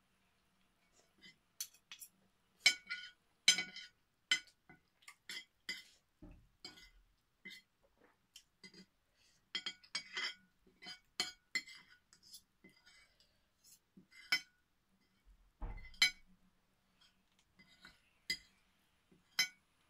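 Metal spoon and fork clinking and scraping against a plate in many short, irregular taps. There are two low thumps, about six and sixteen seconds in.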